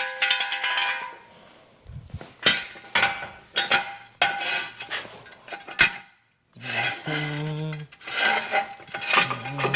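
Metal tools and steel parts clanking and clinking as a jack is set under a Jeep's front suspension, with a brief metallic ring near the start.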